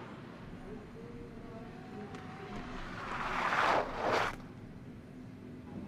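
Ski jumper's skis hissing down the icy in-run tracks. The rush of noise builds about three seconds in and cuts off suddenly as he leaves the take-off table.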